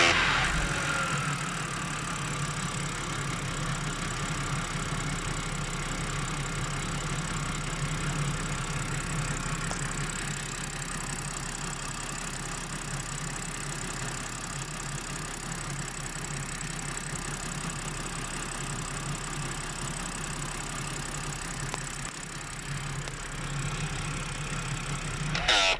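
BMW E90 325i's inline-six engine settling back to a steady idle after being revved, with a steady high tone above the engine drone. This is the strange noise that appeared after the owner cleaned the solenoid valves and fitted new O-rings. Near the end it briefly gets louder, then cuts off.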